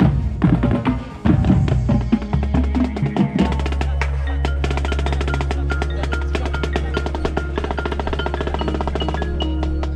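High school marching band show music led by percussion: drums and woodblock over moving low notes, then, from about three and a half seconds in, a steady low bass note under fast, even mallet percussion ticks.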